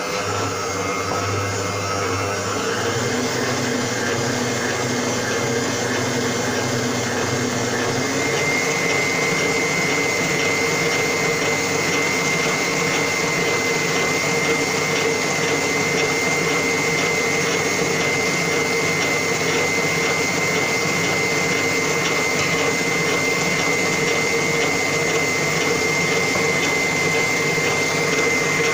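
Electric stand mixer running steadily, its balloon whisk beating eggs and sugar as oil is added: a continuous motor whine whose pitch shifts up a little about eight seconds in.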